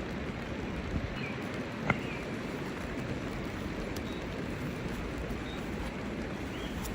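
Steady rain falling, an even hiss, with a couple of sharp drips or taps about one and two seconds in.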